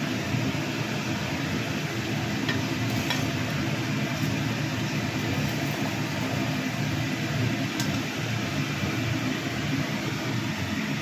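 Steady fan-like motor hum, with a few faint metallic clicks of a steel slotted spoon against the kadai.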